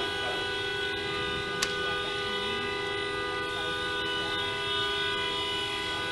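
A vehicle horn sounding continuously as a steady chord of several tones, with one sharp click about a second and a half in.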